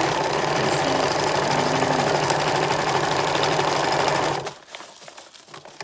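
Singer electric sewing machine running at a steady speed, stitching a bandana onto plastic film. It stops abruptly about four and a half seconds in, leaving only faint clicks and rustling of the material being handled.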